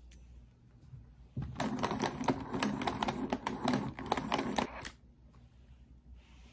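Hand-cranked desk pencil sharpener grinding a pencil: a rapid clicking, rattling grind for about three seconds, starting about a second and a half in and stopping suddenly.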